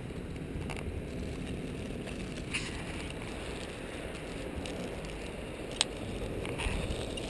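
A clear plastic zip bag holding a handheld Geiger counter rustling and crinkling in the hand over a low, steady handling rumble. A few isolated sharp clicks stand out, the clearest about six seconds in.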